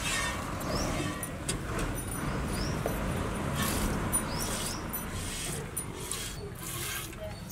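Milk squirting into a steel pail in repeated streams as a water buffalo is hand-milked.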